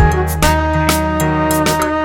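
Background music: sustained instrumental notes over a steady bass line, with regular percussive hits.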